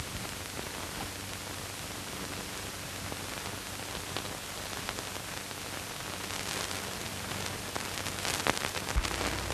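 Surface noise of an early-1930s optical film soundtrack: a steady hiss with a faint low hum and scattered crackles, which come more often near the end.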